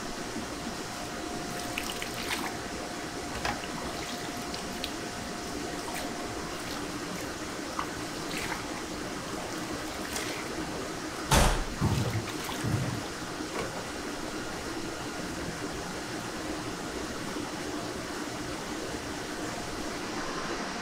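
Liquid ladled over a hanging raw duck, splashing and trickling off the skin into a tray below, with small clinks of the steel ladle, over a steady kitchen fan hum. One sharp, louder splash comes about eleven seconds in.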